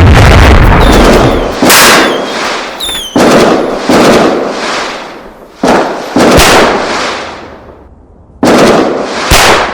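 Fireworks going off: a series of about eight loud, sudden bangs, each dying away over a second or so, with short wavering whistles about one to three seconds in.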